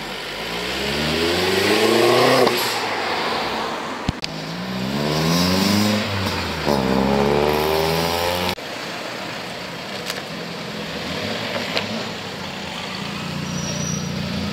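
A car engine revving hard as the car accelerates away: the pitch climbs steeply three times, each climb falling off sharply. About two-thirds of the way in the sound cuts abruptly to a lower, steady engine running.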